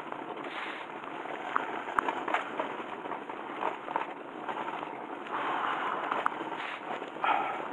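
Rattling, rolling noise of moving quickly downhill over cracked, patched asphalt, with a steady rush of wind and road noise and scattered sharp clicks and knocks.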